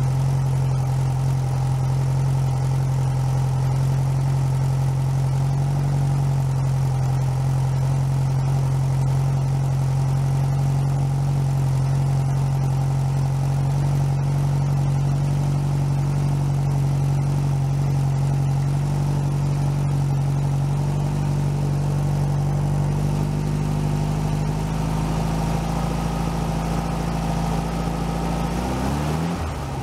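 Rebuilt 1641 cc VW Type 1 air-cooled flat-four running steadily on a test stand on its first run, held at a fast idle by a partly closed choke while cold. The engine speed sags a little late on and dips sharply just before the end, then picks up again.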